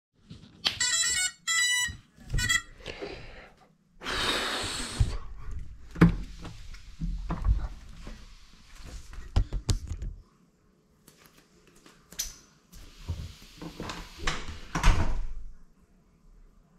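Handling noise from the camera-carrying cinewhoop drone as it is picked up, carried and set down: rustling, scraping and several sharp knocks, with the loudest stretches about four, six and fourteen seconds in. Three short electronic beeps come in the first two seconds.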